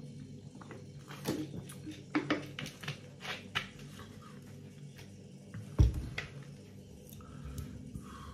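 A person eating vegetable ramen: faint chewing and mouth noises with scattered short clicks, and one louder thump nearly six seconds in. A low steady hum runs underneath.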